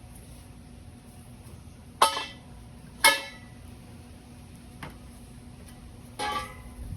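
Steel pieces being knocked or set down, giving sharp metallic clanks that ring briefly: two about a second apart, then a longer rattle near the end. A steady low hum runs underneath.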